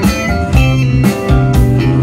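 Instrumental gap between sung lines of a pop-rock song: guitar-led band music over a steady beat.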